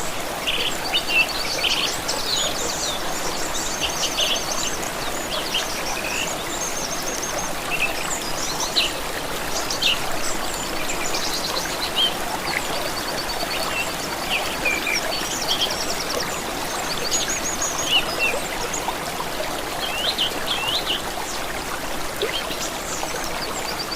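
Several birds chirping and trilling, many short calls and quick repeated-note trills, over the steady rush of running water.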